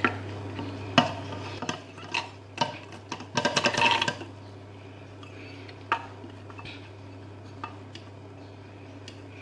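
Chopped onion, garlic and pepper pieces dropped by hand into a plastic blender jar, knocking against the jar and the glass bowl. The knocks come singly at first, bunch into a clatter about three to four seconds in, then thin out to a few light taps over a faint steady hum.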